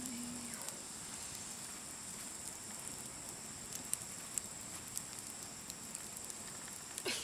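Wood campfire crackling, sparse sharp pops over a steady hiss. A brief louder sweeping sound comes near the end.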